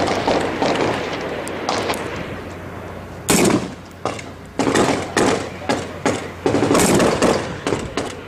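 Rifle gunfire in a firefight: a few shots in the first two seconds, a short lull, then a loud shot just past three seconds in followed by a steady run of single shots, about two or three a second.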